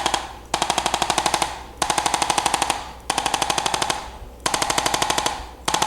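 A small motorised device rattling out rapid taps, about a dozen a second, with a steady hum, in bursts of about a second that repeat five times with short gaps between them.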